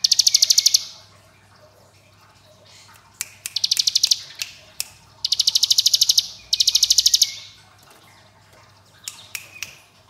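Ciblek gunung, a prinia, singing its ngebren song: buzzy trills of rapid, machine-gun-like notes at about a dozen a second, each trill under a second long and repeated four or five times, with a few short single notes between.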